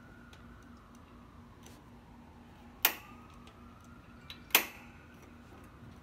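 Piezo spark igniter of a Bluu 20,000 BTU portable propane heater snapping twice, about a second and a half apart, as the control knob is held in and turned to pilot to light the pilot flame. A few fainter ticks come between.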